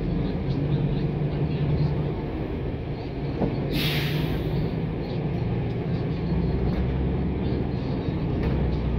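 Inside a NABI 416 transit bus: the steady low drone of the bus's engine and drivetrain, with a short hiss of released compressed air about four seconds in.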